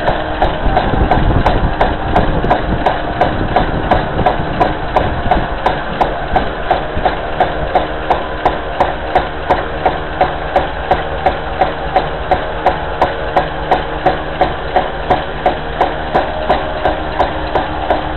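Homemade scrap-wood rooster whirligig turning in the wind: its crank-driven moving parts knock in a steady rhythm, about two and a half knocks a second, over the steady whir of the spinning propeller. Wind rumbles on the microphone for the first couple of seconds.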